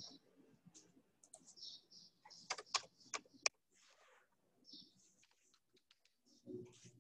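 Faint typing on a computer keyboard, keys tapped irregularly while text is deleted and retyped, with a quick run of sharper key clicks about two and a half to three and a half seconds in.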